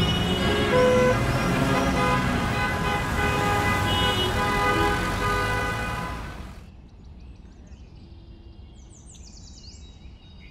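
City street traffic with car horns honking. About six and a half seconds in it cuts off to a faint outdoor ambience with a few birds chirping.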